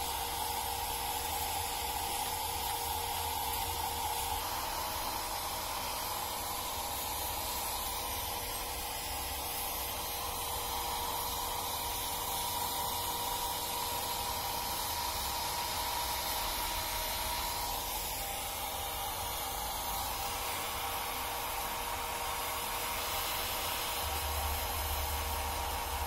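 Handheld hair dryer running steadily: a constant rush of blown air with a steady motor hum, drying a wet cat's fur.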